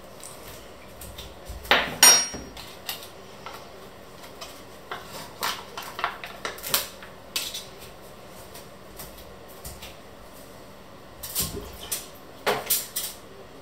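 Kitchen dishes and utensils being handled. A sharp clink about two seconds in rings briefly, then scattered light taps and knocks follow, and a cluster of clatters comes near the end.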